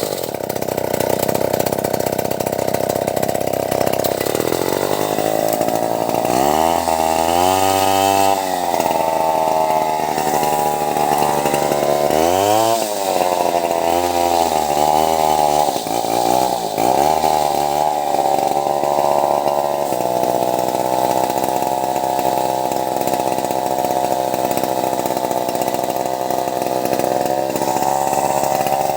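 Stihl 070 two-stroke chainsaw running hard, its engine pitch sagging and climbing back several times as the chain bogs down in the acacia wood and recovers.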